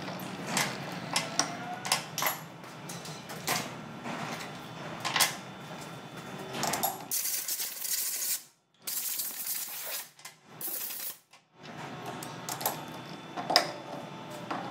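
Metal tools and parts clinking and knocking as they are handled in a machine shop, with a stretch of hissing in the middle that cuts in and out.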